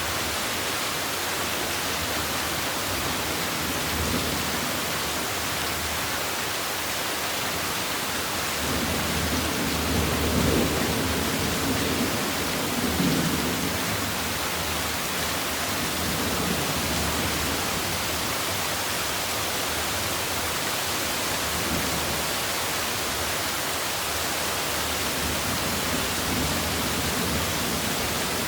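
Heavy rain falling steadily, a dense even hiss. About nine seconds in a low rumble swells for several seconds, then fades back under the rain.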